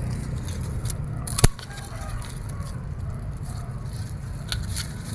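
Pruning shears clicking as they cut through an orchid stem. One sharp snip comes about a second and a half in, and lighter clicks follow near the end, over a steady low rumble.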